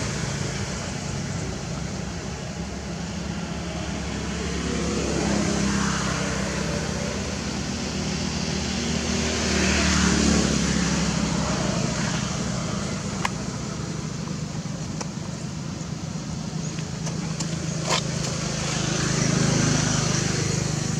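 Background traffic: motor vehicles passing, their engine noise swelling and fading three times, with two sharp clicks in the second half.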